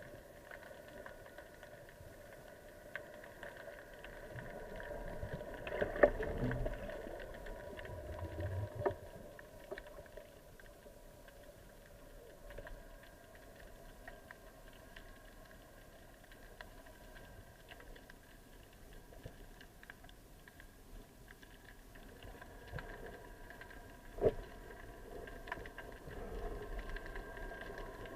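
Faint sea water sloshing and bubbling around the camera, swelling twice, with a few short knocks over a steady low hum.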